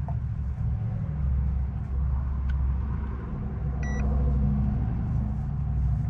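A steady low hum runs throughout, and about four seconds in a digital clamp meter gives one short electronic beep.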